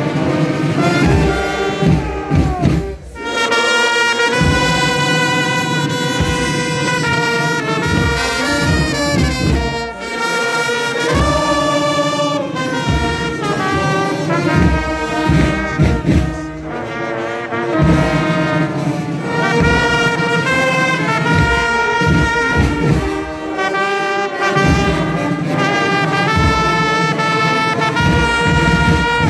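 Dunkirk carnival brass band playing a tune, trumpets and trombones holding long notes, with a brief dip about three seconds in.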